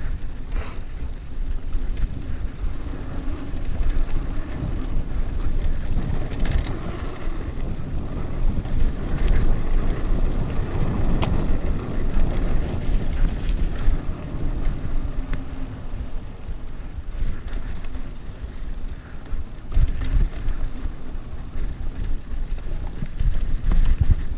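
Mountain bike rolling fast down a dirt trail: a steady rumble of tyres on dirt and wind buffeting the microphone, swelling and easing with speed, with short knocks and clatters as the bike goes over bumps.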